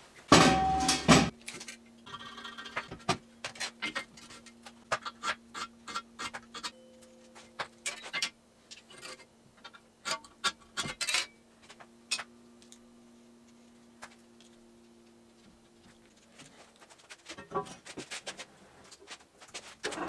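Steel stock being handled and marked out on a steel welding table: a loud clank in the first second, then a scatter of light metallic taps and clicks over a faint steady hum.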